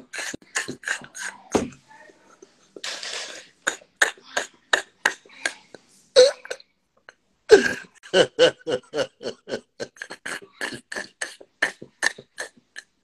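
A man laughing hard and breathlessly in quick short bursts, several a second, with a long drawn breath about three seconds in and a brief pause around seven seconds.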